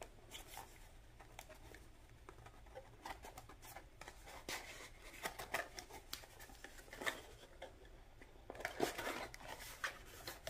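Faint rustling, scraping and light clicks of a handmade cardstock box being handled and opened by hand, getting busier near the end as the lid comes open.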